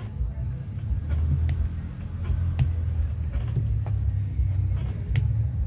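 A bean masher pressing boiled potatoes in a plastic bowl, with a few light taps and clicks against the bowl, over a steady low rumble that is the loudest sound throughout.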